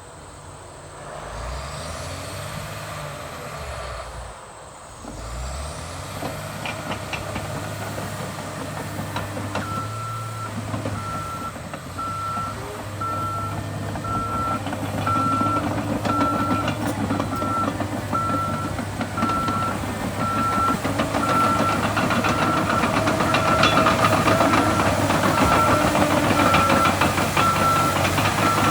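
John Deere 850J crawler dozer with its six-cylinder John Deere 6090 diesel running and growing louder. From about ten seconds in, its backup alarm beeps about once a second as it reverses.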